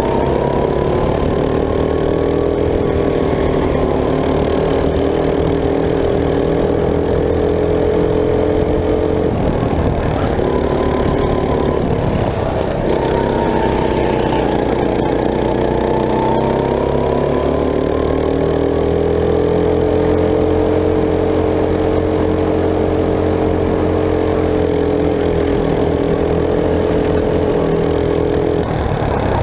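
Go-kart engine running at speed. Its pitch dips and climbs as the kart slows for corners and accelerates out again, with wind noise over the onboard microphone.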